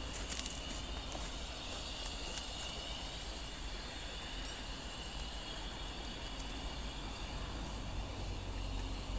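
Steady low rumble with a faint hiss over it from a train on a heritage steam railway.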